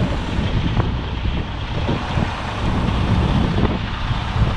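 Semi truck's diesel engine running at a steady low idle, heard from inside the cab while the bobtail tractor creeps in reverse.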